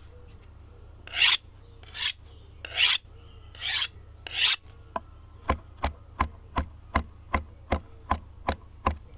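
Five short rasping strokes, then a steady run of sharp ticks, about three a second.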